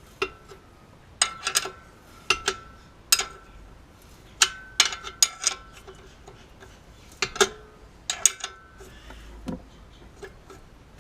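Metal hand tools clinking and clicking on steel as suspension bolts are tightened. The sound comes in short clusters of sharp clicks, several with a brief ringing tone, with gaps of about a second between them.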